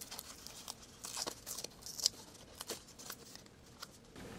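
Packaging of a card-sized mini calculator being torn open by hand: a faint series of short, irregular crackles and rips.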